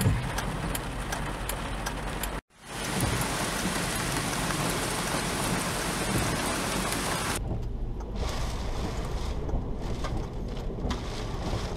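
Steady hiss of heavy rain, cut off abruptly about two and a half seconds in and resuming a moment later. About seven seconds in it gives way to a duller rush with the high hiss gone, heard from inside a car driving on a wet road.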